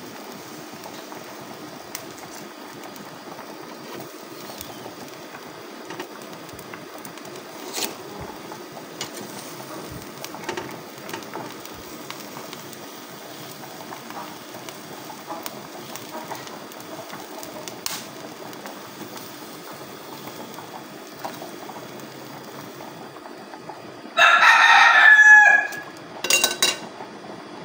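Steady hiss of a gas stove burner under a wire grill rack, with a few light metal clicks. Near the end a rooster crows loudly for about a second and a half, then gives a second, shorter call.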